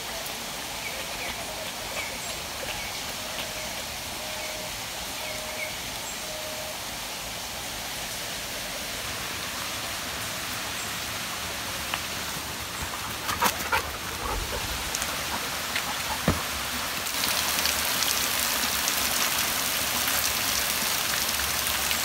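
Steady rush of a small waterfall trickling over rocks into a shallow stream, growing louder about seventeen seconds in as it is approached. A few sharp knocks in the middle.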